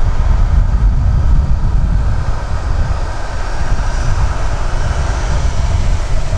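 KC-135R Stratotanker's four CFM56 (F108) turbofans running at taxi power: a steady jet hum with a faint high whine, over a heavy low rumble.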